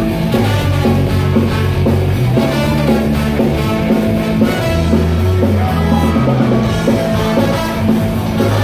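Ska-punk band playing live and amplified: electric guitars, bass, drum kit and trumpet in a loud, steady-beat passage.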